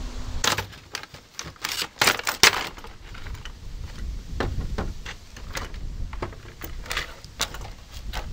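Plastic blister packaging of a drill pump crackling and snapping as it is pulled and cut open, a rapid run of sharp clicks in the first three seconds, then sparser clicks as small plastic and metal parts are set down on a wooden bench.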